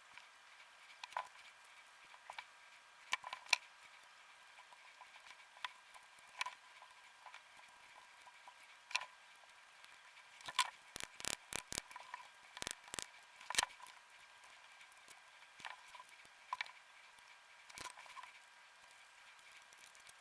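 Small clicks and taps from the parts of a DualSense controller being handled during a stick repair. They come scattered, with a quick run of sharper clicks a little past the middle, over a faint steady whine.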